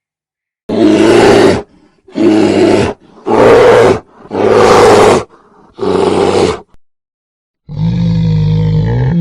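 Loud animal calls: five rough calls of about a second each with short gaps, then a longer, more tuneful call that rises and falls near the end.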